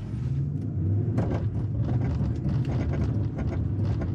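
Nissan Armada's 5.6-litre V8 pulling hard at full throttle, held at just over 2000 rpm under heavy load with traction control switched off. The engine rises in level right at the start and stays steady, with scattered knocks and clicks throughout.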